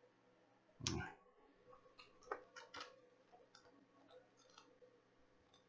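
Quiet handling of a Blu-ray case and its paper insert as the insert is turned around: one soft knock about a second in, then faint scattered clicks and light rustles.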